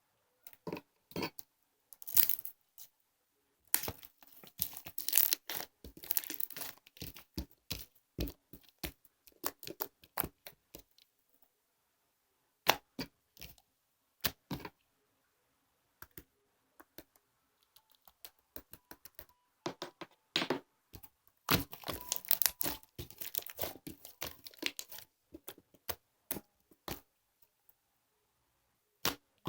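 Irregular bursts of crinkling, crackling handling noise with sharp clicks, heaviest in two clusters: one starting about two seconds in and one in the second half.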